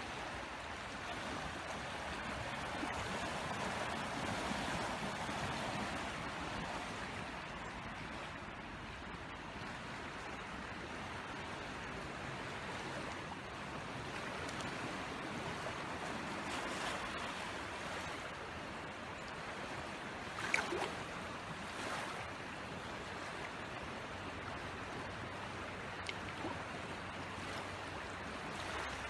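The flood-swollen French Broad River rushing, a steady rush of water. A couple of short, sharper sounds stand out about twenty seconds in.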